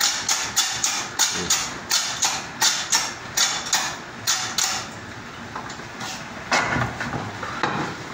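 Quick, even strokes of a gloved hand working across the steel plate of a rubber-molding press, about three a second, stopping about five seconds in. A few knocks of steel mold parts being handled follow.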